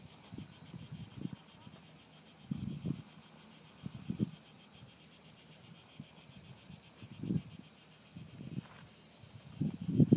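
A steady, high, finely pulsing chorus of cicadas in sunlit scrub, with scattered low thumps that grow louder near the end.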